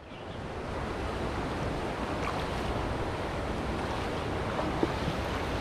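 Steady rushing noise of wind buffeting the microphone beside a flowing river, swelling in over the first second and then holding even.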